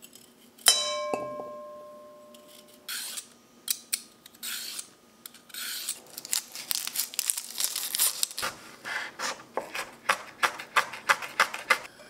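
A sharp clink that rings on for a second or two, then dry onion skins crackling and tearing as onions are peeled by hand with a knife, the crackles coming thick and fast in the second half.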